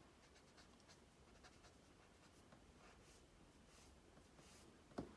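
Faint scratching of an Artify marker tip on sketchbook paper: a series of short shading strokes, with a single sharp click about five seconds in.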